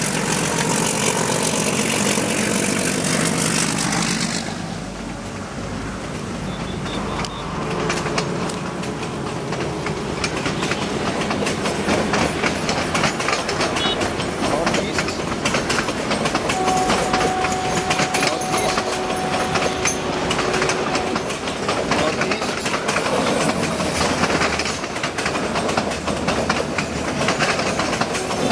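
Meter-gauge YDM-4 Alco diesel locomotive pulling away under power, its six-cylinder engine chugging loudly for the first four seconds or so as it passes below. Then a train of passenger coaches rolls steadily past with a clickety-clack of wheels over the rail joints.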